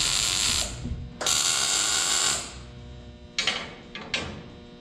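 Welder laying two tack welds, each a crackling hiss of about a second, tacking a new suspension mount to the frame. Near the end come a couple of brief, sharper noises.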